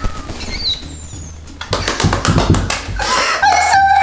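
Background music with a steady low beat. About two seconds in comes a quick run of clicks, and near the end a loud, held high-pitched tone sets in.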